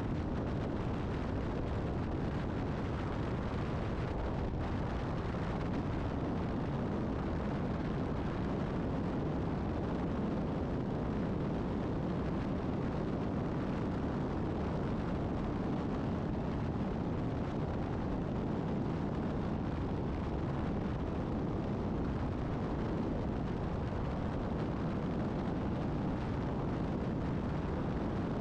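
Steady low rumble of wind and road noise at highway speed, heard by a camera moving alongside traffic, with no distinct engine note or separate events.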